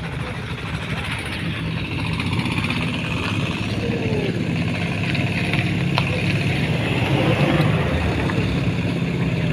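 An engine running steadily, a low rumble that grows a little louder later on, with a single sharp click about six seconds in.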